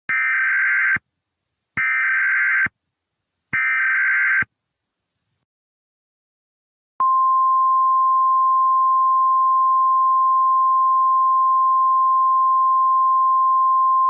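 Emergency Alert System header: three short bursts of warbling SAME data tones, about a second each, then after a pause of about two seconds a steady single 1050 Hz weather-alert tone that begins about seven seconds in and holds. It is the attention signal that announces an incoming warning.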